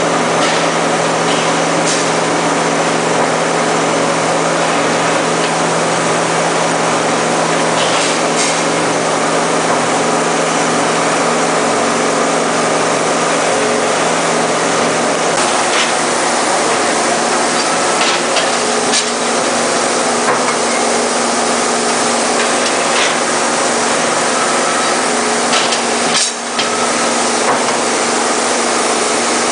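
Lead cathode casting machine running: a steady mechanical hum over a loud hiss, with occasional sharp knocks every few seconds.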